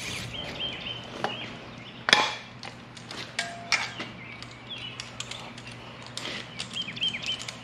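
Handling noise of a cordless drill and cylinder hone being picked up and readied: scattered light clicks and metal knocks, with one sharper, louder knock about two seconds in. Birds chirp faintly in the background.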